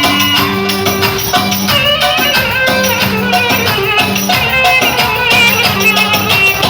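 Upbeat music with a dense, steady rattling percussion beat under sustained melodic notes.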